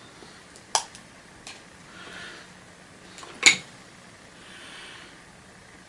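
Two sharp knocks of hard plastic and metal as a vacuum cleaner motor is handled and worked at, the second, about three and a half seconds in, the louder, with faint handling rustle between.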